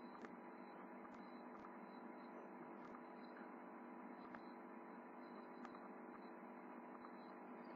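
Near silence: room tone with a faint steady electrical hum and a few soft, scattered clicks.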